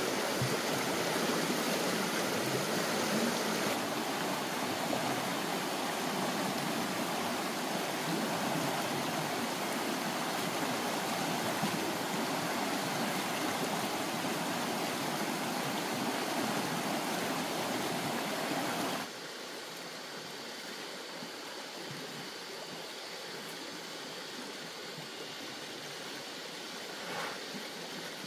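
Flowing stream water rushing steadily. The sound drops suddenly to a quieter, thinner flow about two-thirds of the way through, with two faint short sounds near the end.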